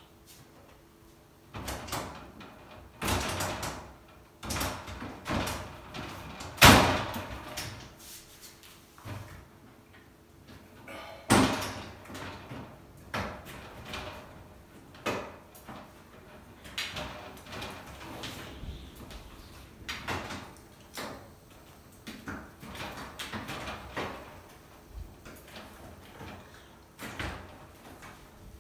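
Knocks, clicks and rattles of a shower enclosure's sliding door panels and frame being handled and fitted. The two loudest knocks come about seven and about eleven seconds in.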